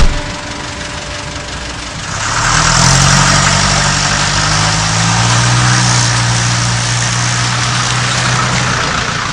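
A car engine running steadily close by, starting about two seconds in, after a sharp knock at the very start.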